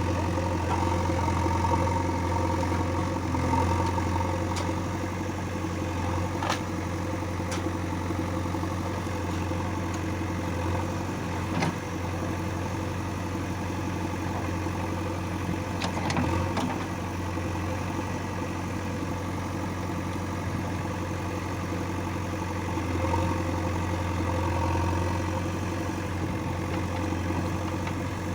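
Diesel engine of a backhoe loader or tractor running steadily near idle, with a few short knocks at intervals.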